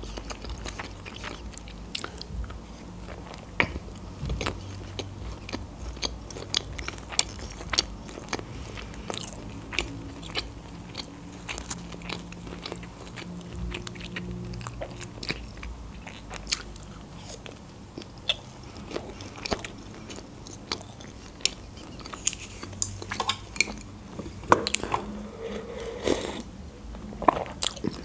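Close-miked eating: chewing and biting noodles and other food, with many short, sharp mouth clicks and wet smacks throughout.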